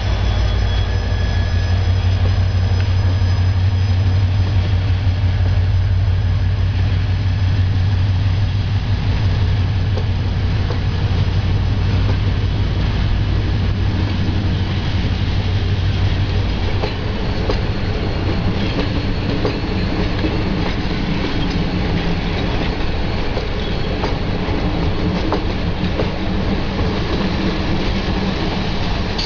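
Diesel locomotive ZS 666-001 passing with a passenger train. Its engine drones low and strong for the first half, then fades as the coaches roll by with wheels clicking over rail joints and some high wheel squeal.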